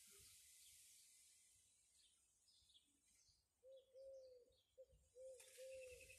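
A dove cooing: a run of about five low hooting notes, some short and some drawn out, beginning a little past halfway. Faint high bird chirps sound over a quiet outdoor hiss.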